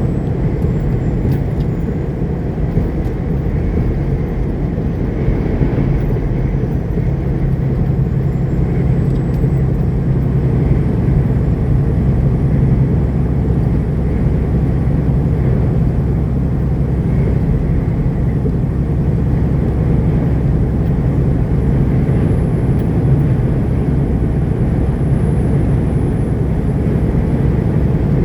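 Steady low drone of a semi-truck's engine and road noise while cruising on the highway.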